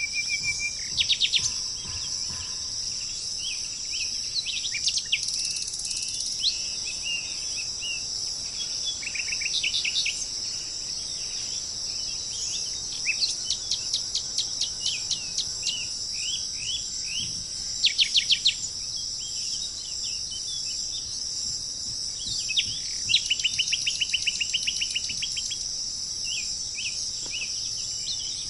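Small birds calling in short chirps and quick trills of rapidly repeated notes, over a steady high-pitched insect drone.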